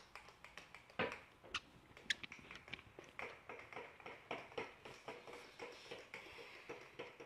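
A run of light, irregular clicks and taps, a few a second, some ringing briefly.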